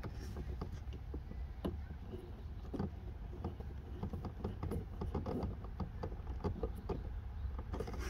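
Small irregular plastic clicks and rustles as a Posi-Tap wire connector's cap is screwed down by hand onto turn-signal wiring, over a low steady rumble.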